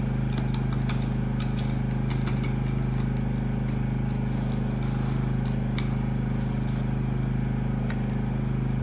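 A steady low machine hum at one unchanging pitch, with faint scattered clicks and taps over it.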